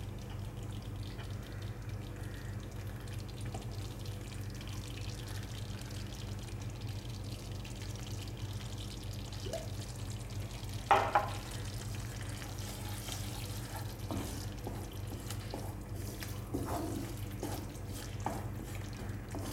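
Wooden spatula stirring thick masala paste cooking in a frying pan, over a steady low hum. A single sharp knock stands out about eleven seconds in.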